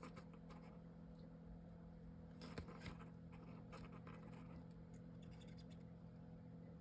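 Near silence: a steady low room hum with a few faint rustles and clicks of hands handling paper and chipboard, the clearest about halfway through.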